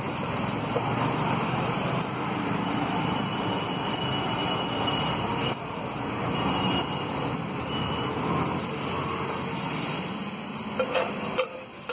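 Butter and pav bhaji masala sizzling and bubbling vigorously on a large flat griddle (tawa): a loud, steady frying hiss.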